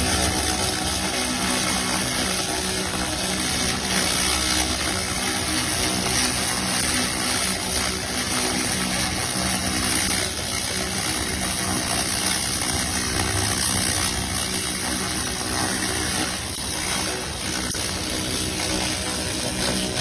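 Pulsed fiber laser cleaner stripping paint from a metal bar: a loud, steady hiss, strongest in the treble, over a low mechanical hum.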